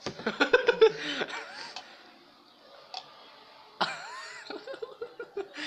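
Young men laughing in short bursts, then a quieter lull with a single light click about three seconds in, and another brief laugh or exclamation shortly after.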